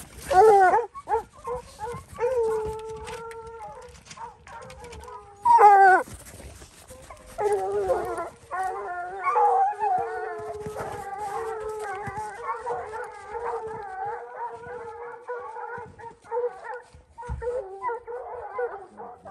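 Lion hounds bawling on a fresh mountain lion track: two loud howls close by in the first six seconds, then from about seven seconds in a pack bawling steadily, overlapping and further off.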